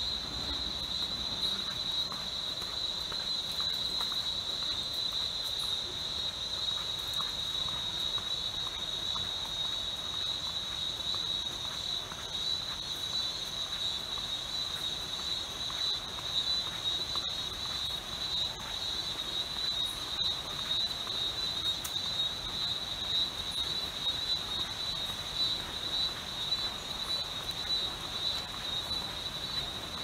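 Insects in tropical forest, singing in one steady, high-pitched, unbroken drone.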